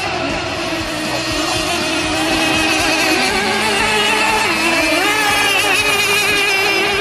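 Several radio-controlled racing boats' small OS two-stroke outboard engines running at high revs, their pitch wavering and shifting as the boats turn and pass, getting louder about two seconds in.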